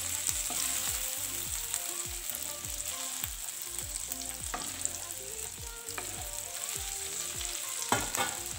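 Marinated chicken pieces sizzling in hot oil and butter in a nonstick pan, with a spatula scraping the pan as the pieces are lifted out.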